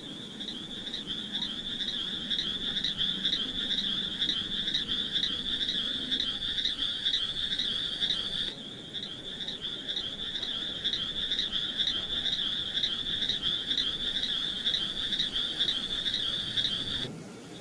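Frogs calling in a continuous chorus of high-pitched, rapidly pulsing calls that repeat without a break. The level drops abruptly about halfway through and again near the end.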